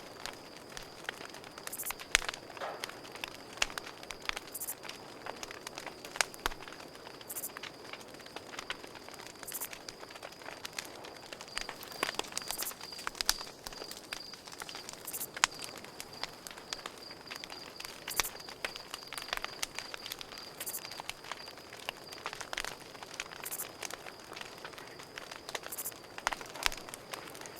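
Campfire crackling, with irregular sharp pops and snaps of burning wood, over a steady high-pitched cricket trill.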